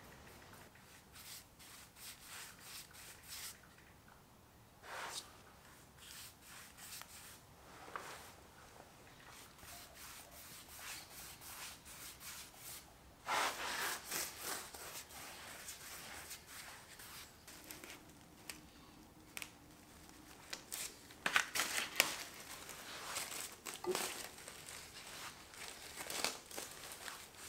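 Paintbrush strokes brushing paint along a painted timber skirting board, a soft repeated rubbing. Near the end, louder crinkling and rustling as the plastic masking sheet is pulled up off the floor.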